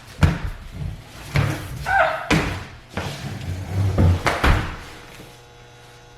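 A series of irregular knocks and thumps, with a brief pitched sound near two seconds in, stopping about five seconds in.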